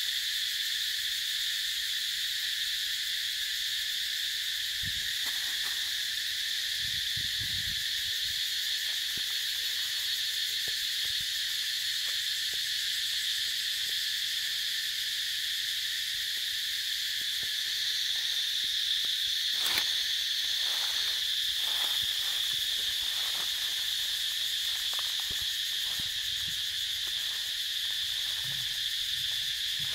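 A dense insect chorus drones steadily at a high pitch. A few faint rustles come through in the second half, with a sharp click about two-thirds of the way through.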